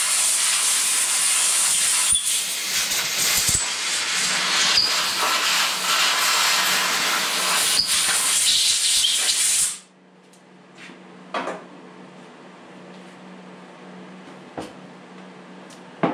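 Compressed-air blow gun hissing as it blows sawdust and debris out of a chainsaw's clutch and bar-mount area. The hiss rises and falls a little as the nozzle moves, then cuts off suddenly about ten seconds in. A few light knocks from handling the saw follow.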